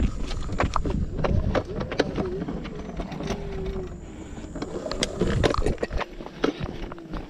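Hover-1 electric kick scooter riding along a concrete path. There is a low rumble from the wheels and wind, with frequent sharp knocks and rattles and a faint, wavering whine from the electric motor.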